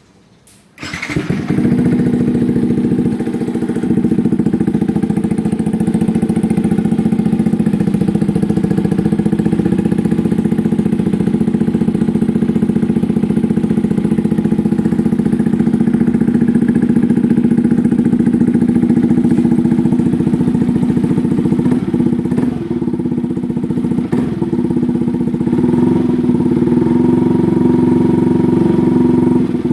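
Yamaha R15's single-cylinder engine through a loud SC aftermarket exhaust, starting up about a second in and then idling steadily.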